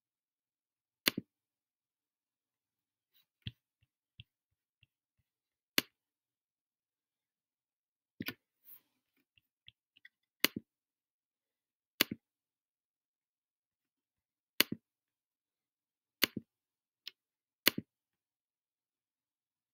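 Clicking of a computer mouse: about a dozen short, sharp clicks, many of them quick press-and-release pairs, spaced a second or two apart.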